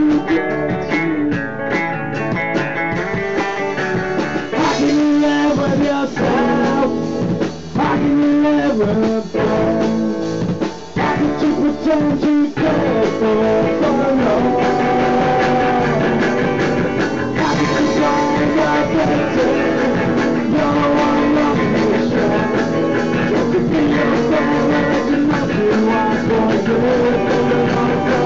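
Punk band playing a song in rehearsal, with guitar and drums going together.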